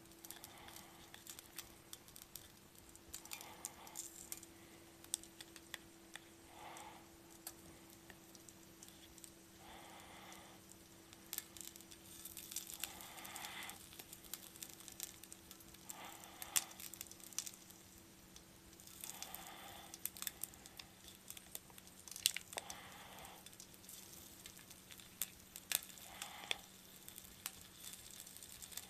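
Frozen shrimp shumai being handled and set one by one onto an electric hot plate: a faint crinkle of packaging every few seconds, with scattered light clicks, over a low steady hum.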